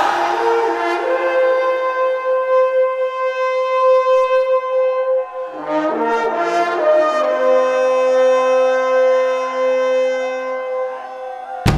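Music of long held horn-like notes: one note sustained for about four seconds, then from about halfway several lower notes join and hold together as a chord, easing off near the end.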